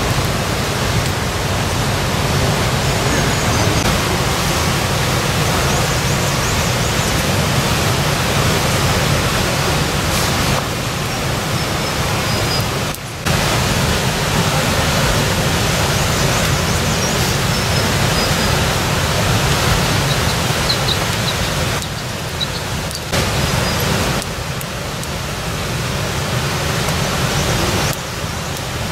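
Steady, loud rushing noise with no clear rhythm or pitch, briefly dipping a few times where the picture cuts, with a few faint high chirps over it.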